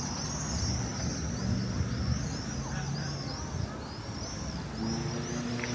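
Cicadas calling in an even rhythm of repeated chirps, about three a second, over a steady rumble of street traffic. Near the end a vehicle engine's steady hum joins in.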